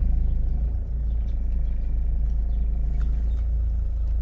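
A car engine running, with a steady low rumble heard from inside the cabin as the car makes a slow manoeuvre with a trailer.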